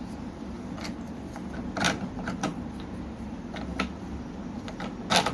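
Hand-made quick-release vise's jaw being slid open along its screws after release, giving scattered clicks and knocks, with louder knocks about two seconds in and near the end.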